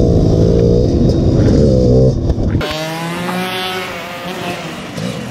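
Motorcycle engine heard onboard, revving up and down as the rider chases the ball. About two and a half seconds in, it cuts off abruptly into a quieter pitched sound that slides down and then holds steady.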